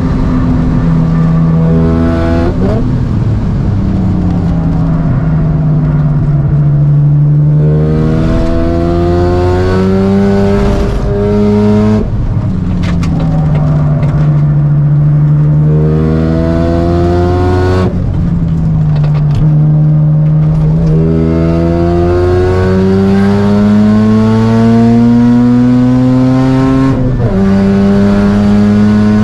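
Mazda RX-7 FD3S's single-turbo 13B rotary engine driven hard: its note climbs repeatedly and drops sharply at each gear change, and winds down more slowly in between as the car slows.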